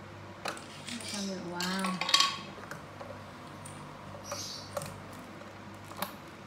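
Hard plastic toy pieces clicking and clattering as they are handled, a few sharp separate clicks with the loudest about two seconds in.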